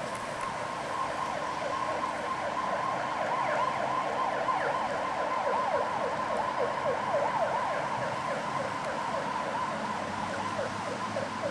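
Emergency vehicle siren in a fast yelp: rapid falling sweeps over a steady tone, growing louder toward the middle and easing off toward the end.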